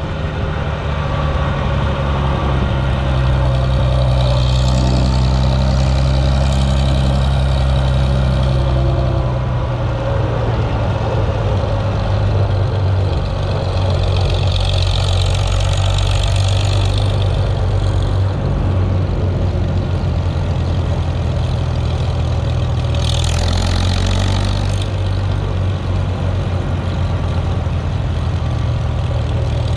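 Antique tractor engine running steadily while driving down the road, heard close up from the driver's seat, its speed shifting slightly a few times. A brief rush of noise rises over it about three quarters of the way through.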